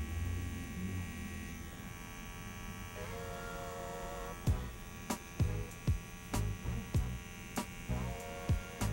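Electric hair trimmer with a T-blade buzzing steadily as it cuts a shape-up along the hairline at the temple. In the second half a run of short, sharp clicks comes about twice a second.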